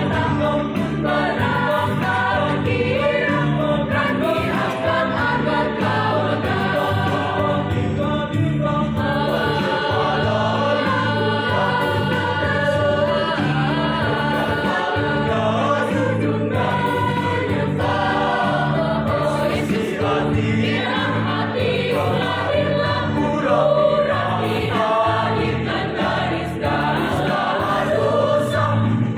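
Mixed choir of women's and men's voices singing a sacred song.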